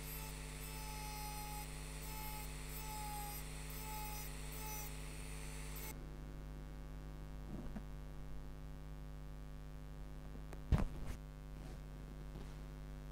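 Rotary glass-engraving handpiece with a small Arkansas stone point grinding the surface of a wine glass: a high grinding hiss with a faint tone coming and going, which cuts off about six seconds in. A steady electrical hum remains, with a sharp knock near the end.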